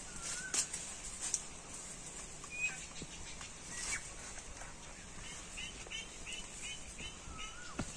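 Birds calling: a short whistled note that rises then falls, heard twice, and a quick run of about seven high chirps a little after five seconds in. Scattered light crackles of feet on dry leaf litter.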